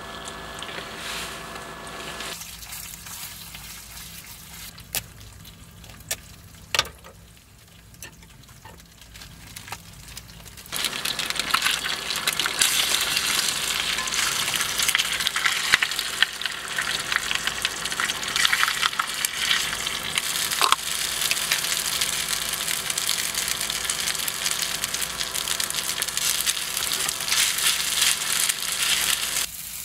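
Food frying and sizzling in a pan, a dense crackling hiss that starts suddenly about eleven seconds in and cuts off near the end. Before it there are a few sharp clicks over a quieter background.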